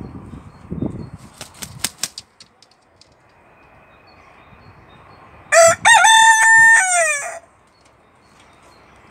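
A Barnevelder rooster crows once, past the middle, for about two seconds: a short rising opening, a long held note, then a drop at the end. A few sharp clicks come a second or two in, before the crow.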